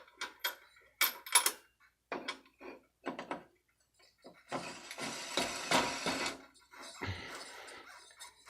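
Small metal parts clinking and knocking together as pulleys and washers are handled and slid onto a steel shaft: a run of sharp clinks, then a longer stretch of metal scraping and rattling about halfway through.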